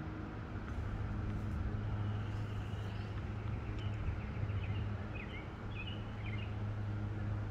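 Outdoor background sound: a steady low hum, with a few short bird chirps about halfway through.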